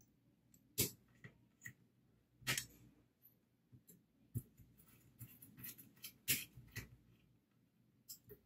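Scattered light clicks and metal taps of a screwdriver working small screws into a mini PC's metal chassis, with a few sharper ticks about a second apart.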